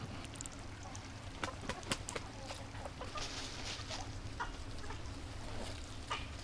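Light clicks and taps of hands handling food on a wooden table, with a brief rustle about three seconds in and a few short, faint high chirps, over a steady low hum.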